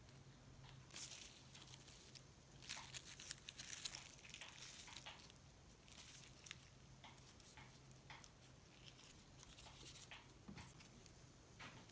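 Near silence with faint rustling and light clicks from hands handling small decorations, busiest about three to four seconds in, over a faint low hum.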